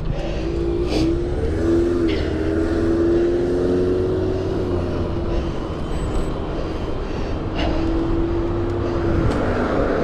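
Riding noise from an e-bike moving at speed: wind rushing over the microphone and tyre and road noise. Over it runs a steady hum that drops out in the middle and comes back later.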